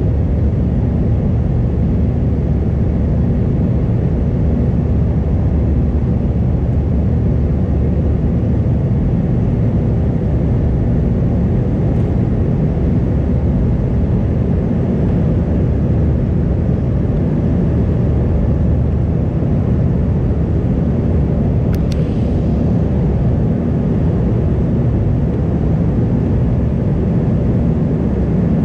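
Steady low rumble inside an Airbus A320's passenger cabin in flight: the engines and the airflow over the fuselage.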